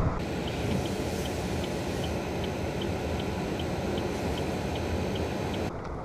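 Steady blizzard wind noise with a faint, regular high ticking, about two or three ticks a second.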